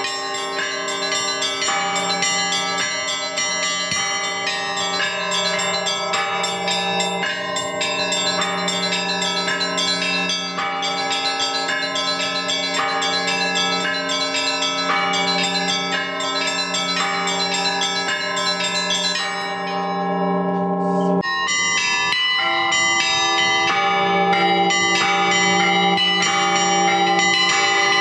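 Orthodox church bells ringing from the bell tower: several bells of different pitches struck in a continuous, fast-moving peal, their tones overlapping and ringing on. About twenty seconds in, the higher bells briefly drop out and the peal resumes in a changed pattern.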